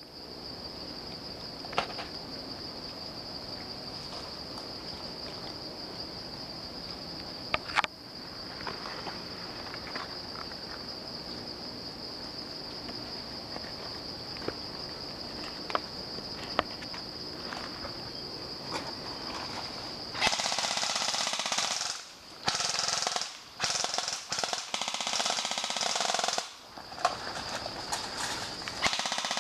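Airsoft guns firing in rapid full-auto bursts, several bursts of a second or two with short gaps, starting about two-thirds of the way in. Before that, a steady high-pitched drone with a few sharp single clicks.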